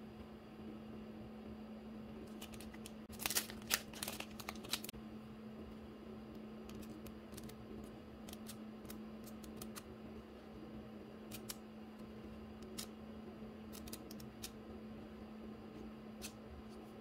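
Plastic wrapping and paper handled by hand: a cluster of crinkles and clicks about three to five seconds in as a small paper memo pad is unwrapped, then scattered light ticks as its pages are flipped, over a steady low hum.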